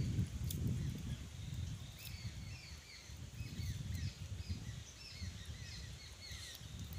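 Birds chirping over and over in short, quick falling notes, over a low, uneven rumbling noise.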